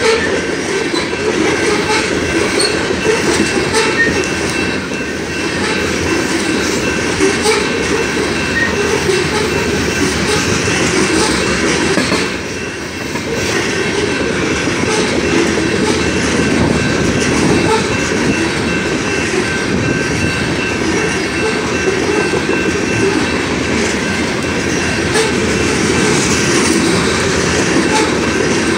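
BNSF coal train's hopper cars rolling past, a steady loud rumble of steel wheels on rail with clickety-clack over the rail joints, briefly quieter about halfway through. A faint steady high-pitched tone rings over it.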